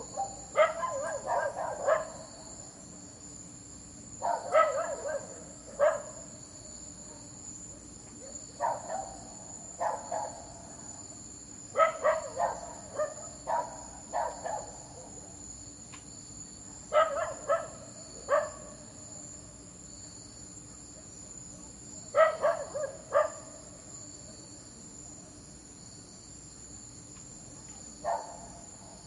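A dog barking in short bouts of a few barks, every four to six seconds, over steady cricket chirping.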